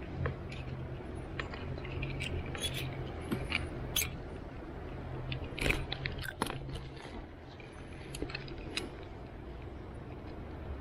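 Close handling noise: rustling with scattered small clicks and scrapes, the sharpest about three to four seconds in and again around six seconds, over a low steady rumble.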